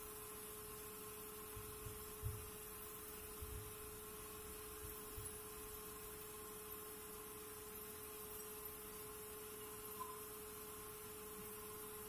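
A steady hum with one clear tone, and a few faint dull thumps in the first half.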